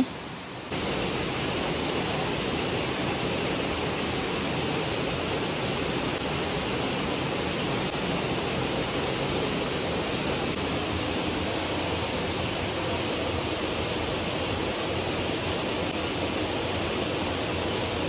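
Waterfall rushing: a steady, even noise of falling water that comes in abruptly just under a second in and holds constant.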